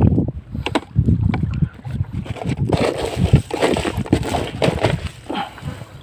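Wind rumbling on the microphone, with rustling and light clatter as shrimp and small fish are scooped from a plastic basket into a bucket with a plastic scoop and a gloved hand.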